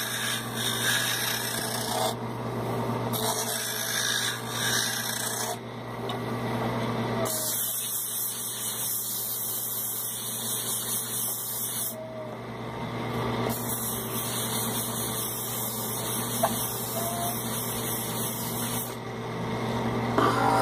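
A small wood lathe running with a steady motor hum while a hand chisel turns a wooden bird-call blank; the scraping cutting sound comes and goes in stretches of a few seconds as the tool meets and leaves the wood.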